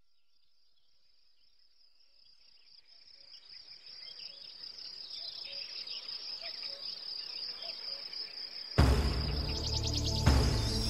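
Outdoor nest-camera ambience: a steady high-pitched insect-like trill fades in, with faint chirps beneath it. About nine seconds in, a sudden loud rush of noise comes in and continues.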